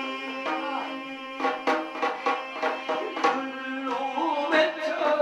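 Korean shaman-ritual accompaniment music: a held, wavering melody line over drum strokes that come in about a second and a half in, at roughly three a second.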